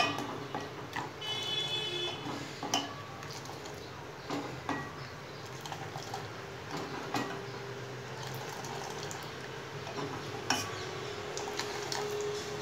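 Steel ladle clinking against a steel pot as boiling milky tea is scooped up and poured back in a thin stream, with the splash of the pour; scattered sharp clinks over a steady background.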